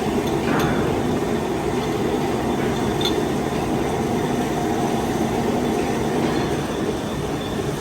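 Metal lathe running steadily, a constant mechanical hum with a few faint ticks.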